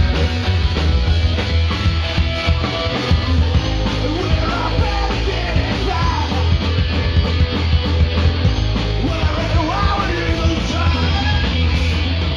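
Punk rock band playing: electric guitars, bass and drums.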